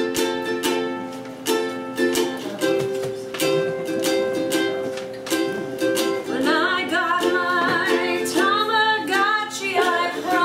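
A ukulele is strummed in steady chords, opening an improvised song. From about six seconds in, a voice starts singing over it.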